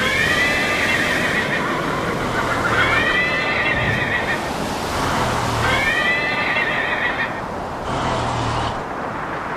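An animal calling three times, each a long, high, arching call of about a second and a half, over a steady background hiss.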